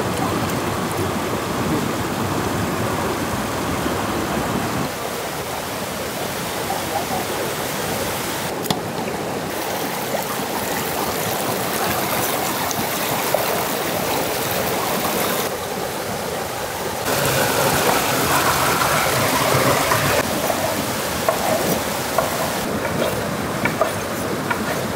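River water rushing over rocky rapids: a steady wash of noise that changes abruptly several times. A few light clicks come near the end.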